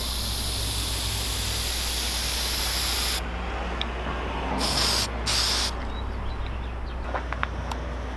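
Aerosol can of white appliance epoxy spray paint hissing as it sprays. One long spray stops about three seconds in, followed by two short bursts a couple of seconds later.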